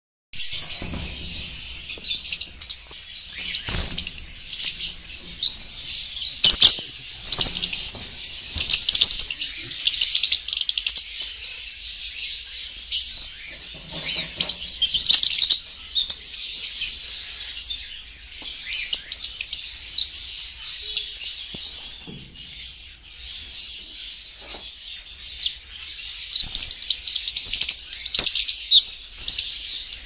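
A crowded cage of lovebirds chattering and screeching in a continuous shrill din. A few sharp knocks break through it, the loudest about six and a half seconds in.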